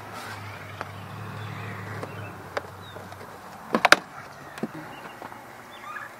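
Metal hand tool prying and scraping at the old RV water heater's metal frame to work it loose from stuck butyl tape: scattered clicks, with a sharp cluster of three loud clacks about four seconds in. A low steady hum underneath stops about three seconds in.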